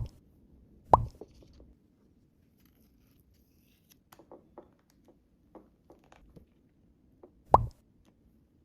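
A cartoon-style 'plop' pop sound effect, heard three times: at the start, about a second in, and near the end. Faint light taps fall in between.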